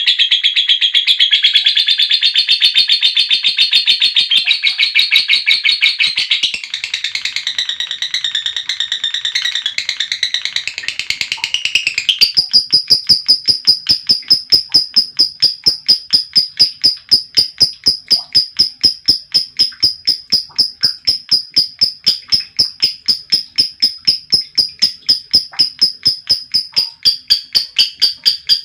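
Female lovebird singing a long, rapid chattering song ('ngekek panjang'). About twelve seconds in it changes to an unbroken run of sharp, high-pitched chirps at about three a second.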